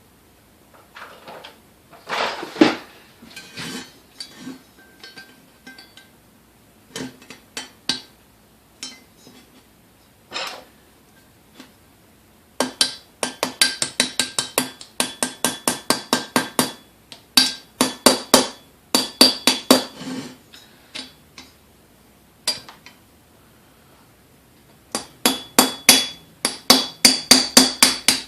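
Hammer tapping on a pin punch to drive out the small pin that holds the door on a KitchenAid A9 coffee mill. There are scattered single taps at first, then quick runs of sharp metallic taps with a ringing note, about five a second, in the second half.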